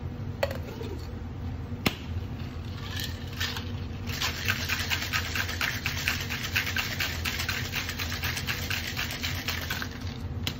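Ice rattling hard inside a two-piece metal cocktail shaker, shaken fast for about six seconds from about four seconds in, chilling a cucumber margarita. Two sharp metal knocks come in the first two seconds before the shaking.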